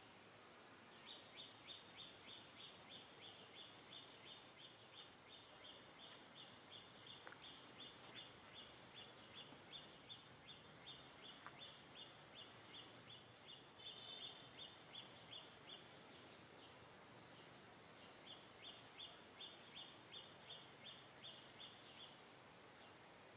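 A small animal's high chirp repeated at an even pace, about three a second, over a faint outdoor background; the chirping stops for a couple of seconds past the middle and then starts again.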